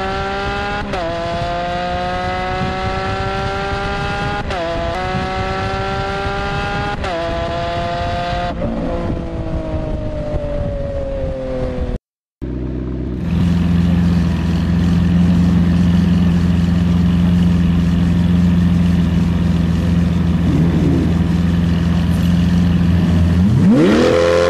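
Ferrari engine accelerating hard through several gears, its pitch climbing and dropping briefly at each upshift, then easing off with falling pitch. After a brief cut, a Ferrari engine runs steadily at low revs with a deep drone, then revs up sharply near the end.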